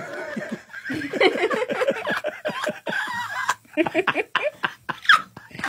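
A man laughing hard in quick, repeated bursts, mixed with some talk.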